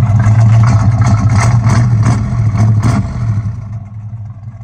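1988 Chevrolet Caprice Brougham's exhaust running at the tailpipe, a steady low rumble broken by uneven sharp crackles. The pipes have just been hooked up to the headers, which had been open. The sound drops in level about three and a half seconds in.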